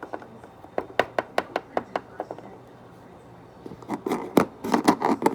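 Small plastic toy figures tapping on a hard surface: a run of quick taps about three a second, a short pause, then a busier cluster of taps near the end.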